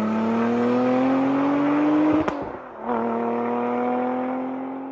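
Lotus Emira's supercharged 3.5-litre Toyota V6 accelerating hard away, its note rising through a gear. A brief drop with a click at an upshift a little after two seconds in, then it climbs again and fades as the car pulls away.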